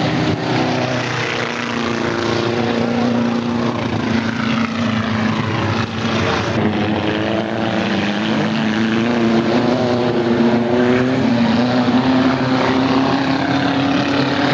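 Chevrolet Chevette race cars' engines running hard together, several engine notes at once, slowly rising and falling as the pack goes around the track.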